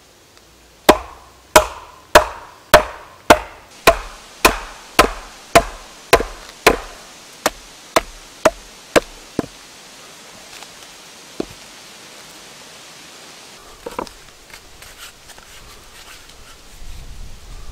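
A hatchet blade being driven into a birch round by a birch log used as a mallet: about fifteen evenly spaced wooden knocks, about two a second, growing quieter. Near the end come a few softer knocks and the clatter of split wood pieces being handled.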